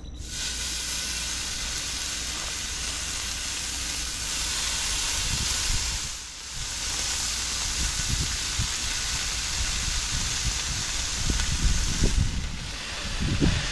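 Bacon strips sizzling on a hot electric griddle, a steady hiss that drops away briefly about six seconds in. Low rumbles hit the microphone in the second half.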